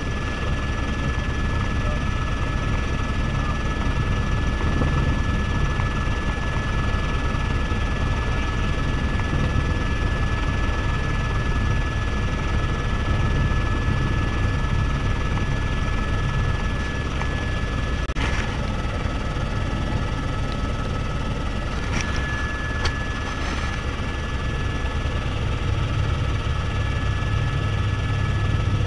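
Helicopter in flight heard from inside the cabin: steady rotor and turbine noise with a constant high whine, and a few brief clicks later on.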